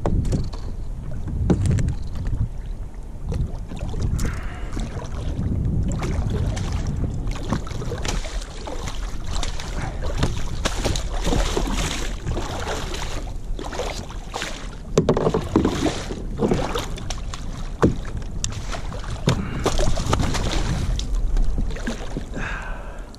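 Water splashing against a fishing kayak as a hooked bat ray thrashes at the surface alongside, heaviest in the middle of the stretch, with wind rumbling on the microphone and several sharp knocks and clicks.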